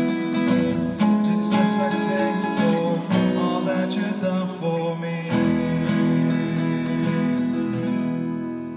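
Acoustic guitar strumming sustained chords as song accompaniment, fading away near the end.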